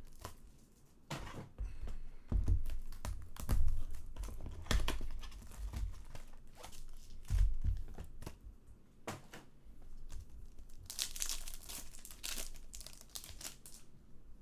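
Foil wrappers of 2019 Bowman Chrome baseball card packs being torn open and crinkled, with cards clicking as they are handled, and a longer rip near the end.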